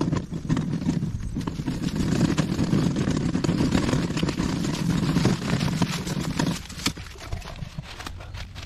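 Four-wheeled garden dump cart rolling and rattling over rough ground thick with dry leaves, with footsteps crunching through the leaves. The rolling rumble stops about two-thirds of the way through, leaving lighter leaf crunching.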